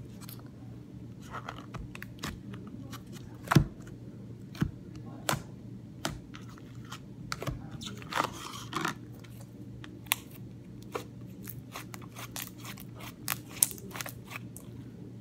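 Hands working slime and a clear plastic container: irregular clicks, taps and scrapes, with one louder knock about three and a half seconds in.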